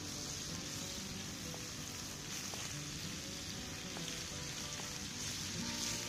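Bacon, tomatoes and onion sizzling steadily in butter in a frying pan held over an open wood fire.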